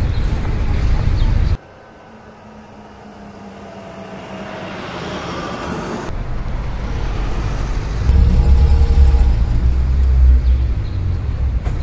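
Semi-truck diesel engine rumbling heavily as the truck drives. The sound cuts off abruptly about a second and a half in. Then another truck's rumble builds up gradually and is heavy again from about eight seconds in.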